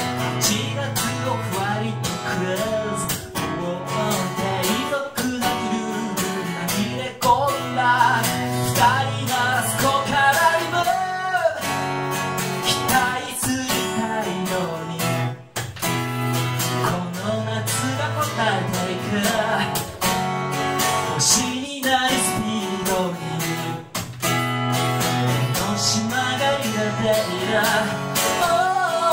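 A man singing while strumming a steel-string acoustic guitar, a solo live performance.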